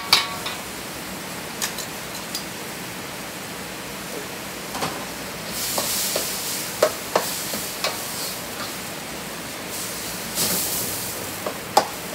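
Meat and vegetables sizzling in a wok over a gas flame, with a metal spatula clacking and scraping against the wok as they are stirred. The sizzle grows louder about halfway through.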